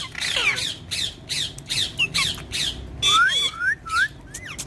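Green ringneck parakeet giving a rapid run of short, shrill calls, with a few quick rising whistles about three seconds in.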